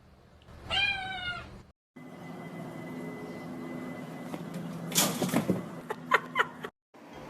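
A domestic cat gives one drawn-out meow that falls in pitch at the end. A second stretch follows over a steady background hum, with a brief noisy burst about five seconds in and two short, higher calls just after it.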